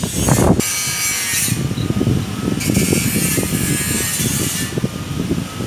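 Irregular rubbing and scraping of bundled wires and a plastic connector being handled on a motorcycle wiring harness, with two stretches of hiss.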